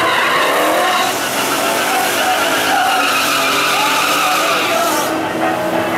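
Fox-body Ford Mustang doing a burnout: the engine revs up and down while the rear tyres spin and squeal with a loud hiss, which stops about five seconds in.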